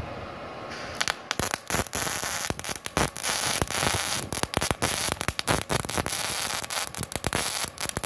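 MIG welder (Multipro MIG-MMA/TIG 160 A-SC) welding steel with solid wire under CO2 shielding gas at about 70 amps: the arc strikes about a second in and crackles irregularly with sharp pops over a steady hiss.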